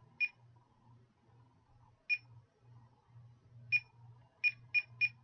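Ocean wave projector nightlight beeping as its remote's buttons are pressed: seven short high beeps, spaced out at first, then four in quick succession near the end. A faint low buzz from the projector runs underneath.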